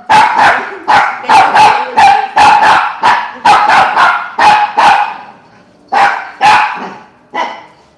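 Small dog barking rapidly, high-pitched and sharp, about three barks a second, then slowing to a few spaced barks after about five seconds.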